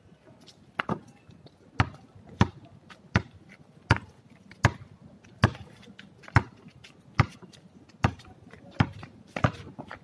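Basketball bouncing on a concrete court: a run of about a dozen sharp bounces, unevenly spaced, a little under a second apart.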